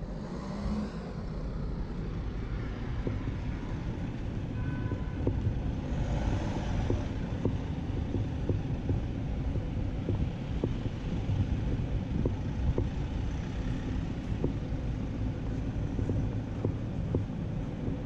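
A small flatbed truck's engine running as it drives past, over a steady low city rumble, with evenly paced footsteps on stone paving ticking through it.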